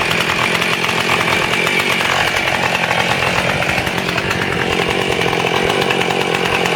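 Husqvarna 450 Rancher chainsaw's two-stroke X-Torq engine idling steadily just after a cold start, warming up.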